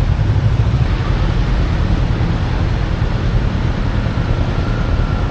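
Motorcycle riding through city traffic: a steady heavy low rumble of wind buffeting the microphone and engine and road noise, with the hum of surrounding traffic.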